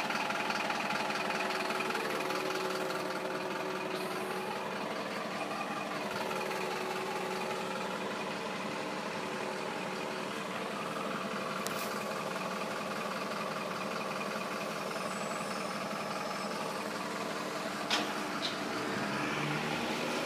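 Lorry's diesel engine idling steadily, with one sharp knock near the end.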